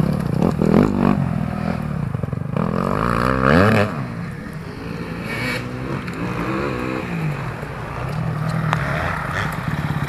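Enduro dirt bike engines revving under load on a steep muddy climb, the pitch rising and falling again and again with the throttle.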